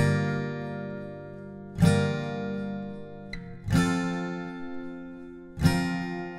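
Background music: a chord struck about every two seconds, four times, each left to ring out and fade.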